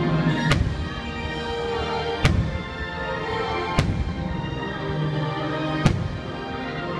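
Aerial firework shells bursting, four sharp bangs roughly one and a half to two seconds apart, over show music playing through the park loudspeakers.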